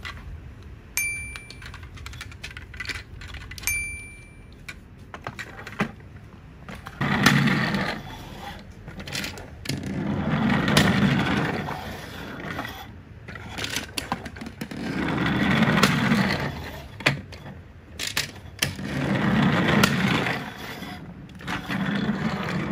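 Plastic toy Thomas the Tank Engine rolling on a wooden tabletop: a rolling noise that swells and fades in about five passes, some four seconds apart, with small clicks of the toy being handled. Two short high beeps about one and four seconds in.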